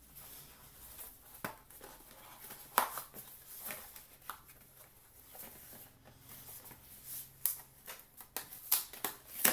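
Small cardboard mailing box being handled and opened by hand: scattered rustles, scrapes and taps of cardboard, with a sharper tap about three seconds in and another near the end.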